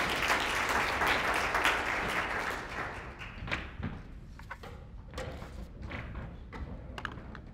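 Audience applauding, the clapping fading out after about three seconds, followed by a few scattered knocks and thumps.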